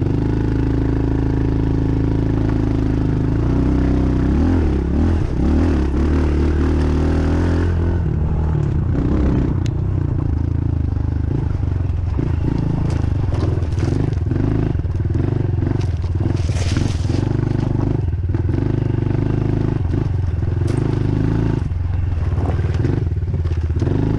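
Dirt bike engine running on a rough trail, its pitch rising and falling with the throttle. Short knocks, clatter and scrapes come from the terrain.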